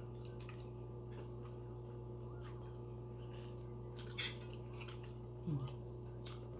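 Close-up eating sounds: a person chewing and biting food eaten by hand, with a few crisp clicks, the loudest about four seconds in. A steady low hum runs underneath.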